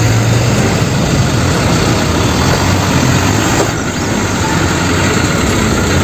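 Truck engine idling steadily, a loud, even, low running sound without revving.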